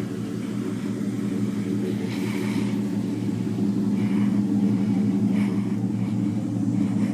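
1995 Chevrolet Impala's LT1 V8 idling steadily.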